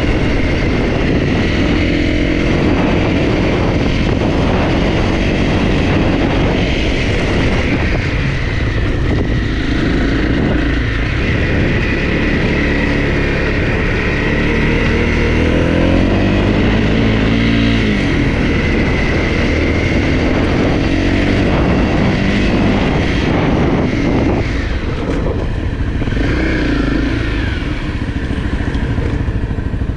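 Honda CRF250 dirt bike's single-cylinder four-stroke engine running under way, its pitch rising and falling with the throttle, with a longer rising rev about halfway through.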